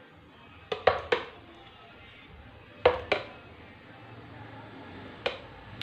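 A metal spoon clinking against a glass bowl and a blender jug while scooping thick strawberry ice-cream mixture. Short sharp clinks come in small clusters: two or three about a second in, a pair near three seconds, and one more near the end.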